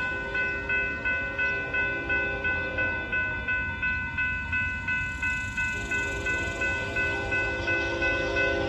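Railroad grade-crossing warning bell ringing steadily at about two strokes a second, sounding because a train is approaching the crossing. About six seconds in, a lower, steady sound from the approaching train joins it.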